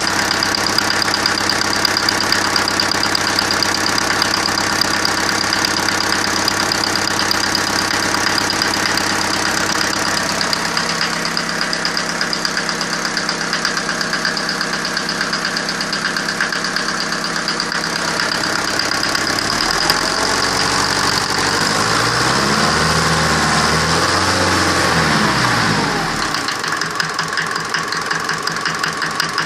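Engine idling roughly with a repetitive knock, a sign of an engine fault. About two-thirds of the way through it is revved up and let back down to idle.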